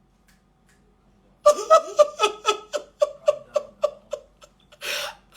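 A woman sobbing in short, rhythmic pitched bursts, about four a second, starting about a second and a half in, then a sharp noisy breath in near the end.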